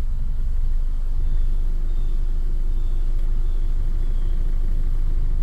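Toyota Camry engine idling rough and shaking, misfiring on cylinders 1 and 4 as read from the scanner codes. A steady hum joins about a second in.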